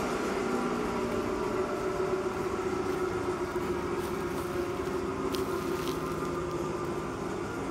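RB-55-2 drum wood chipper running steadily: a constant mechanical hum with several held tones.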